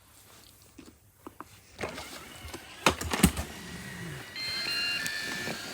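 Robot vacuum driving off a ledge and dropping onto pillows: two quick thuds about three seconds in as it lands. Then come steady high tones that step in pitch over its running hum.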